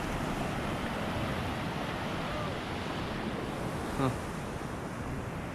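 Gentle sea surf washing steadily on the beach, with wind on the microphone. A brief short sound cuts in about four seconds in.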